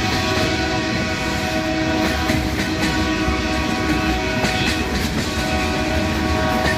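Two diesel-electric freight locomotives working under power, a steady high turbocharger whine over the engine's running, with wheels clicking over rail joints a few times.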